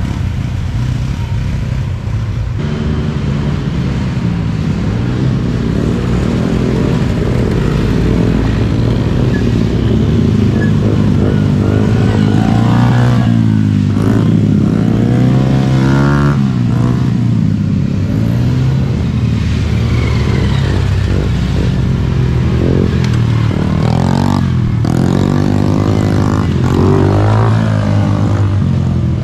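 Small-engine youth racing ATVs running hard, the engine pitch climbing and dropping again and again as the riders open and close the throttle.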